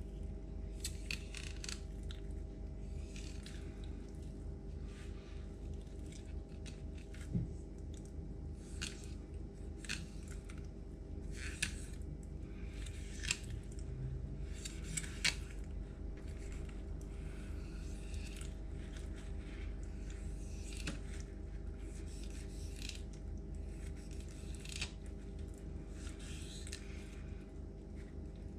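A knife filleting a trout along its backbone on a wooden cutting board: irregular soft scraping and slicing strokes, with a few sharp clicks as the blade works through the rib bones, over a steady low hum.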